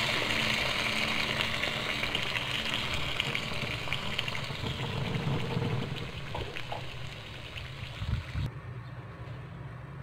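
Water pouring into a frying pan of cut vegetables, the stream splashing and fading away over several seconds. A soft low thump comes near the end.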